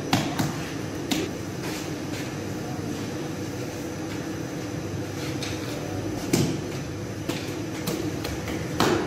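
Working sounds at a sangak bread oven: scattered sharp knocks and clacks from the bakers' long-handled peel, iron rod and dough handling, over a steady hum. The loudest knocks come about six seconds in and near the end.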